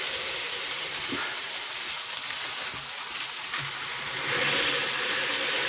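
Ground beef patties sizzling on a hot electric flat-top griddle, about 375 °F, as they are smashed flat with a foil-wrapped pan. The sizzle grows louder about four seconds in, as a patty is pressed down.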